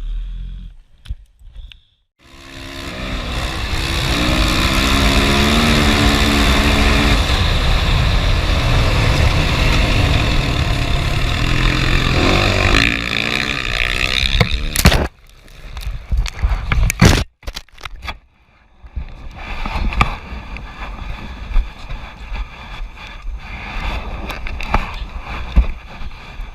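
A motor vehicle engine running loudly for several seconds with wavering pitch, then breaking off abruptly into shorter, quieter stretches of road noise.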